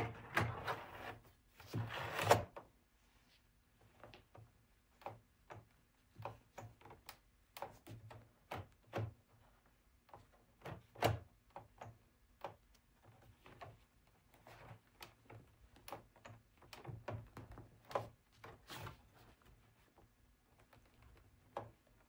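Handling noise from a plastic laptop case as it is pushed and pressed hard to seat the optical drive: scattered soft knocks, taps and clicks, busiest in the first couple of seconds.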